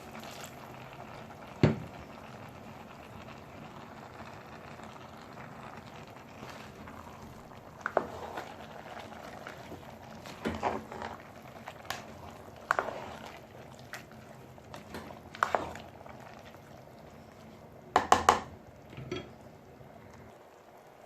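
Pot of unripe plantain porridge simmering with a steady bubbling, broken by scattered clinks and knocks of utensils against the pot, with a quick cluster of them near the end.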